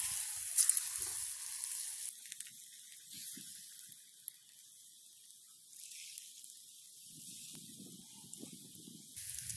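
Battered fish pieces dropped into hot oil in a small camping pan, sizzling loudly as they go in. The sizzle then settles to a quieter, steady fry.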